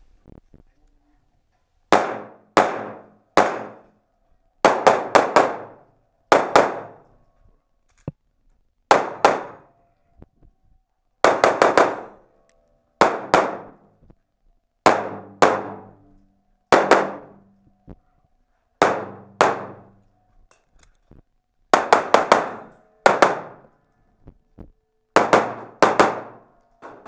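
Semi-automatic pistol shots fired in quick pairs and short strings, with pauses of a second or two between groups as the shooter moves to new targets. Each sharp crack rings on with echo in an enclosed indoor range.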